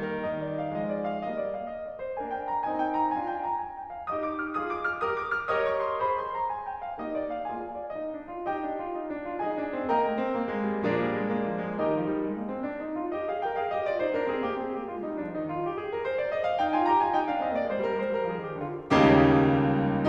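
Solo piano playing classical music: runs of notes sweeping up and down, then a loud, full chord near the end.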